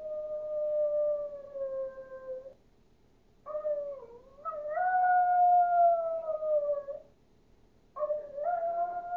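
Chihuahua howling like a wolf in long, drawn-out howls: the first, already going, falls slightly and trails off about two and a half seconds in; a second starts with a waver about a second later and is held for about three seconds; a third begins near the end.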